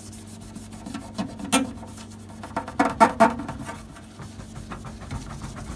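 A paper towel rubbing quickly back and forth on a plastic TV cabinet cover, a rapid run of scrubbing strokes with louder strokes about a second and a half and three seconds in.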